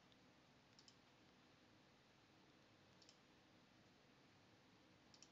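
Near silence broken by faint computer mouse clicks, in quick pairs, about a second in, about three seconds in and near the end.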